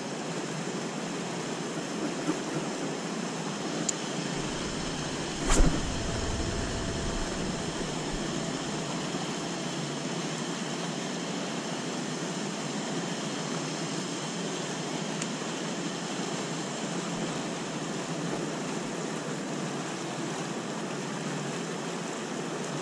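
Water pouring from concrete drain pipes and splashing into a pond in a steady rush, with a single sharp knock about five and a half seconds in.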